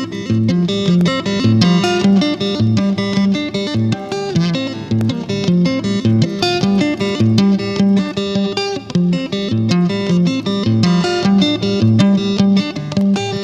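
Tokai Goldstar Sound Stratocaster-style electric guitar being played, a continuous run of quick notes over lower notes.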